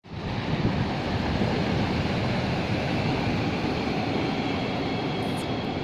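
Sea water surging in and out along the shore, a steady low rumbling noise without a break. This is the strange sound that comes as the water rises and falls, likened to a hydraulic pump.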